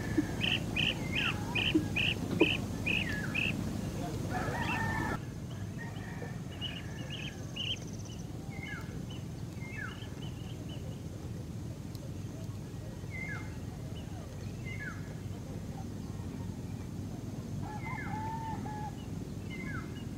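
Birds calling: a quick run of about eight short high notes in the first few seconds, then short downward-sliding calls repeated every second or two over a steady low outdoor background.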